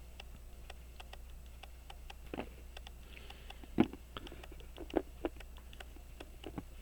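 Faint, irregular small clicks and taps of tweezers and tiny metal parts of a pocket watch movement being handled at the bench. A few sharper taps come about two and a half, four and five seconds in, over a steady low hum.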